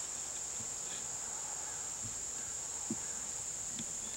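Steady, high-pitched chorus of insects in a grassy meadow, unbroken throughout, with a couple of faint soft taps near the end.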